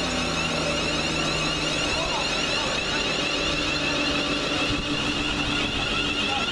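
Class 350 Desiro electric multiple unit at the platform, its electric traction equipment giving a steady high whine over a low hum.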